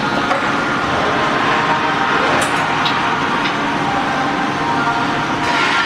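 Steady, loud workshop background noise, a continuous mechanical rush with a faint hum, and a few light clicks in the middle.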